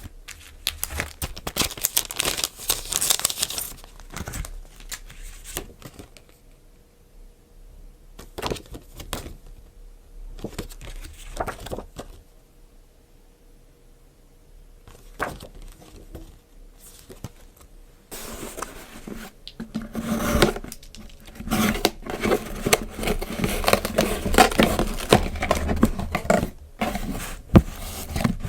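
Packaging being handled and unwrapped: crinkling and tearing of plastic and paper wrapping, with scraping and light knocks. Quieter for a few seconds in the middle, then busy, continuous rustling over the last third.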